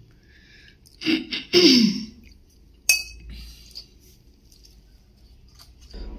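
Metal puja vessels being handled: one sharp metallic clink with a brief ring about three seconds in, as the small silver bowl of turmeric paste knocks against metal.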